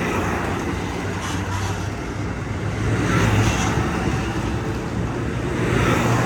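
Passing passenger train: a steady low diesel engine drone under a rushing wheel-and-rail noise that swells and eases off a few times.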